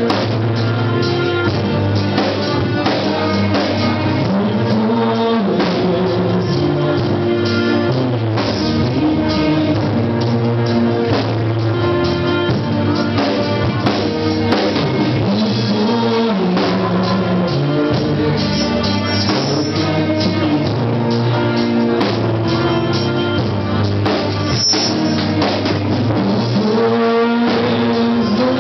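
Live worship band playing: a drum kit keeping the beat under singers on microphones, amplified through a PA, at a steady level.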